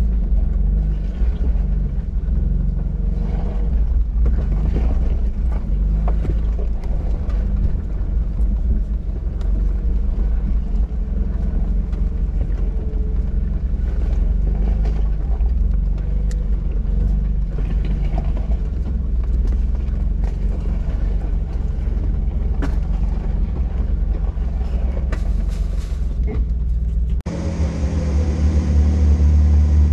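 Off-road vehicle driving a rough trail: a steady low engine and driveline rumble with scattered knocks and rattles as it moves over bumps. About three seconds before the end the sound changes abruptly to a deeper, steadier drone.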